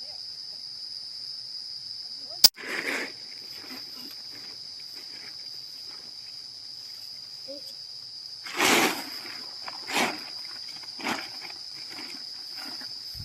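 Insects droning steadily at one high pitch. A sharp click comes about two and a half seconds in, and brief rustling or knocking noises come a few times, the loudest near nine seconds in.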